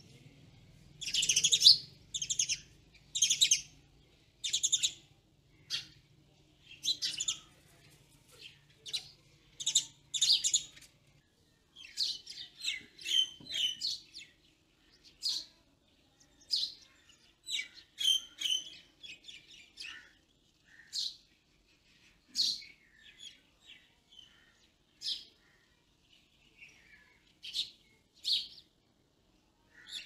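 Birds chirping: many short, sharp, high chirps in quick runs and single notes, loudest in the first few seconds.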